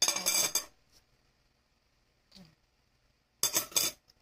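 Two short bursts of tableware clatter from a bowl and cutlery being handled on a table: one at the start and one about three and a half seconds in.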